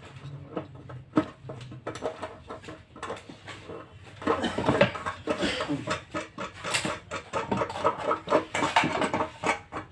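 Light clicks, taps and rattles of small hard objects being handled, sparse at first and becoming busier and louder from about four seconds in.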